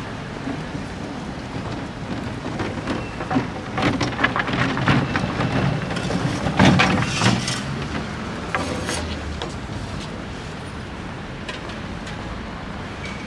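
Street noise with traffic running under it, and a few seconds of dense crackling, clattering noise in the middle.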